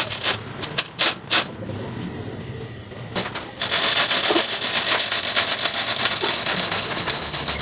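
A few sharp knocks of wood, then about halfway in a steady, high-pitched hissing rasp sets in: a saw cutting through a thick slab of trembesi (suar) wood.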